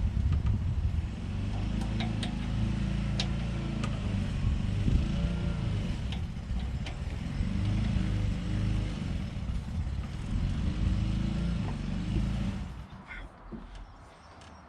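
A motor vehicle engine running with a steady low rumble, its pitch rising and falling slowly, with a few light clicks. It stops fairly suddenly near the end.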